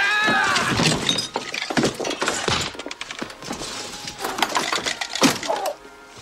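A violent struggle with repeated crashes and thuds as things break and glass shatters, and a pitched cry near the start.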